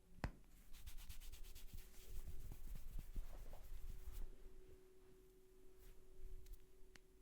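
Hands rubbing quickly through hair and over the scalp in a head massage: a run of scratchy strokes, about ten a second, for some three seconds. A sharp click comes just before it and a few more come near the end, over a faint steady hum.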